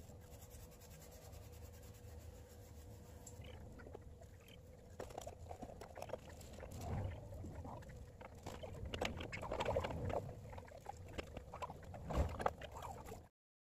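Half a lime rubbed hard against the tarnished parts of an old brass burner to clean them, giving faint scrubbing and handling noise with small clicks and knocks of metal. The rubbing grows busier after a few seconds and cuts off suddenly near the end.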